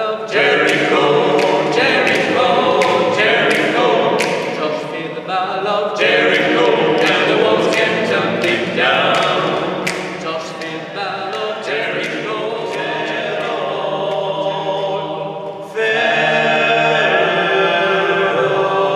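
Male vocal trio singing a cappella in close harmony, with sharp clicks keeping a beat about twice a second. Near the end the voices come in suddenly louder on a held chord.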